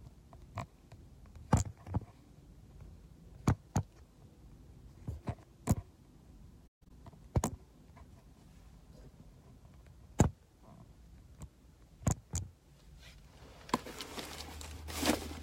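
Irregular sharp clicks and taps, about a dozen, from a handheld phone being handled, over a faint low hum. Near the end, rustling and a cluster of knocks as the person holding it moves and reaches across.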